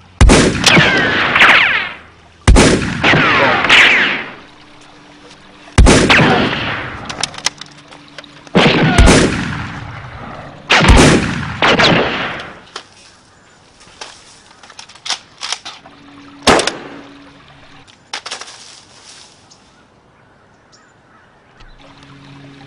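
Gunshot sound effects: about six loud sharp shots a couple of seconds apart, each followed by a falling whine, then a scatter of smaller, fainter pops that die away.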